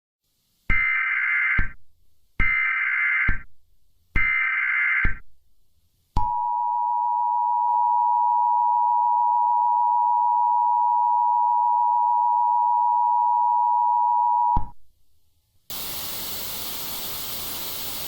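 Emergency Alert System tones: three short bursts of screeching SAME header data, then the two-tone attention signal (853 and 960 Hz) held for about eight seconds. It cuts off and is followed a second later by a steady hiss.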